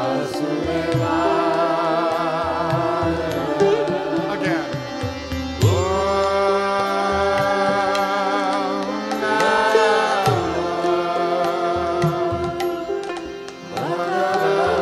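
Live Indian devotional kirtan music: harmonium, bamboo flutes, sitar and a hand drum playing together, with long held melody notes that waver in pitch.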